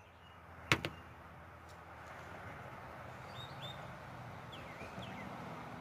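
Several faint, short bird chirps over a steady outdoor background, after a single sharp click less than a second in.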